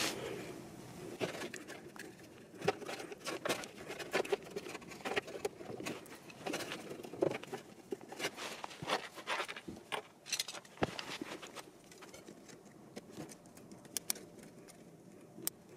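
Hands fitting a plastic air filter onto the rubber intake hose of a Mercedes W212 Airmatic air-suspension compressor: irregular clicks, taps and rubbing of plastic and rubber. The handling is busier in the first half and thins out toward the end.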